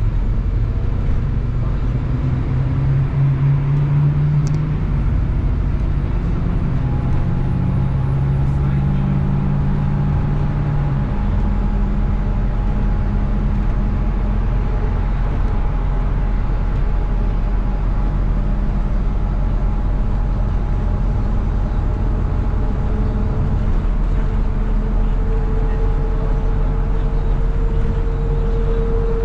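MAZ-103.486 city bus heard from inside: diesel engine and drivetrain running with steady road and tyre rumble while the bus is under way. The engine note changes pitch a few times in the first ten seconds or so and then holds steady, and a steady whine comes in during the last few seconds.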